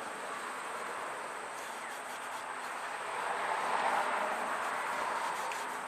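Steady rushing background noise that swells for about two seconds past the middle, with a faint, high, steady whine above it.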